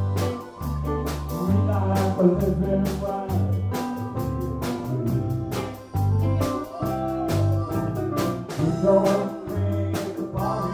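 A live country band playing a song with a steady drum beat, bass and keyboard, and a voice singing over it.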